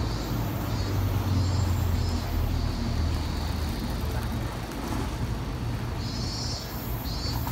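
City street traffic, with a nearby vehicle engine running as a low steady hum that is strongest in the first few seconds.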